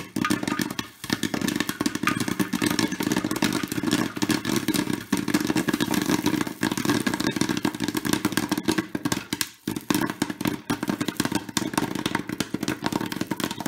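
Popcorn kernels for kettle corn popping in quick, dense succession inside a West Bend Stir Crazy electric popper, over a steady low hum: the batch is at full popping pace.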